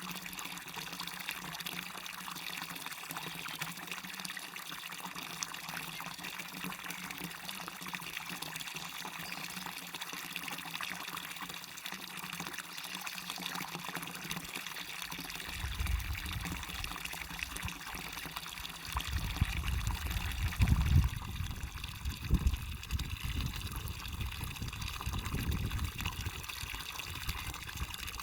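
Waterfall and stream water running with a steady rushing splash. From about halfway through, uneven low rumbles come and go underneath, loudest about two-thirds of the way in.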